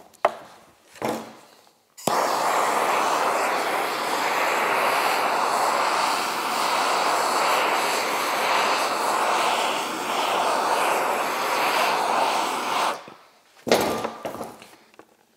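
Handheld gas torch burning with a steady hiss, turned on suddenly about two seconds in and shut off about eleven seconds later, as it heats the tail of a snowmobile ski so the tail can be bent. A few short clicks and knocks come just before and after.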